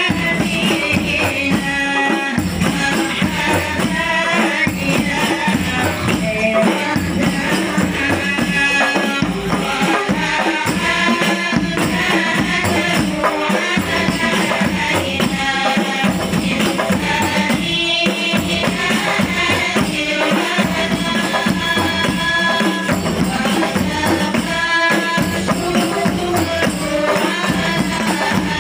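A hadroh ensemble of frame drums (rebana) beating a steady, dense rhythm while a group of women sings a sholawat together.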